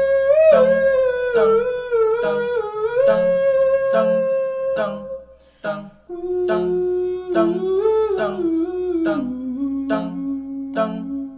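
A cappella beatbox: a voice hums a long, gliding melody line, which breaks off and comes back lower about six seconds in, over a steady beat of beatboxed kicks and snare clicks.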